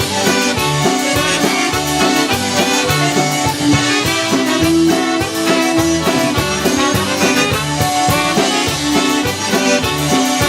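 Live polka-style band playing an instrumental break led by accordion, over a steady beat from a drum kit.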